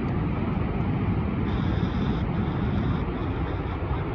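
Steady low rushing roar of falling water, heaviest in the deep end, with a few faint clicks as a Tecsun portable radio's buttons are pressed to switch it to the 49 m shortwave band.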